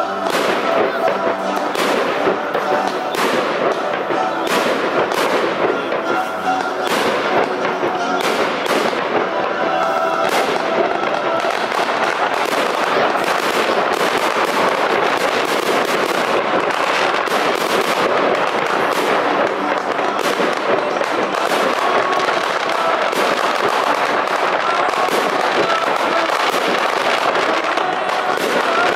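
Fireworks going off in quick succession: many sharp bangs and crackling bursts packed closely together.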